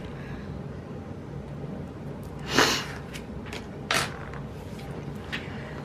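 Small handling noises from paper planner and sticker-sheet work: a brief rustle about two and a half seconds in, then a sharp click about four seconds in, with a few faint ticks.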